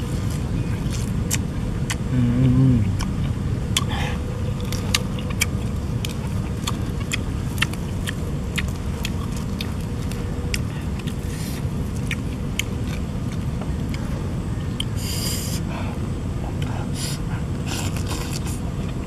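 Steady low wind rumble on the microphone, with scattered sharp clicks and smacks from eating by hand. A short low hum sounds about two seconds in.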